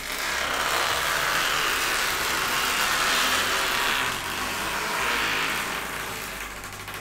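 Protective plastic film being peeled off a curved monitor screen: one long, continuous peel, loudest over the first few seconds and fading toward the end.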